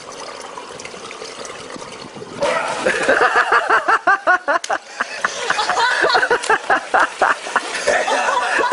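Pool water splashing and sloshing. About two and a half seconds in, a person's voice starts, loud and in quick short bursts.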